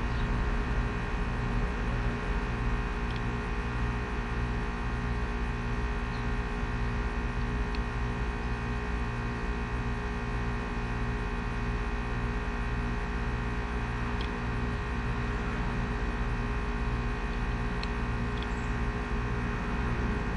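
Air conditioner running with a steady hum and a low, regular throb, with a few faint ticks.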